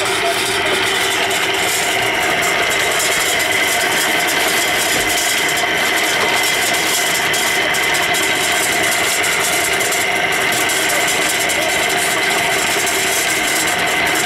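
Small drum concrete mixer running steadily, its drum turning as cement and sand are loaded in to make mortar.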